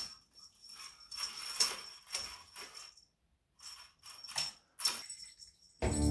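Small bell on a cat toy jingling and rattling in a string of irregular shakes, with a steady high ring running through each shake. Strummed guitar music starts near the end.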